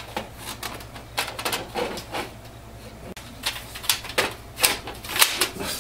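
Plastic paper cassette of a Canon MAXIFY MB2020 inkjet printer being handled and adjusted: a run of irregular plastic clicks and clacks, getting louder and denser in the second half.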